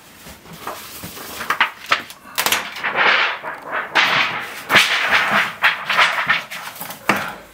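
Irregular rubbing and scraping bursts as a solder-paste stencil is wiped clean of leftover paste, with a few sharp clicks of handling.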